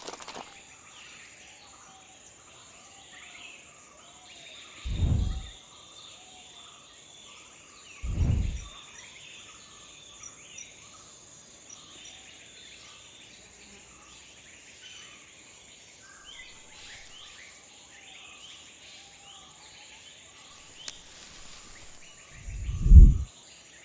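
Forest nature ambience: birds chirping over a steady high insect drone of cicadas and crickets. Three dull low thumps stand out, about five and eight seconds in and the loudest near the end.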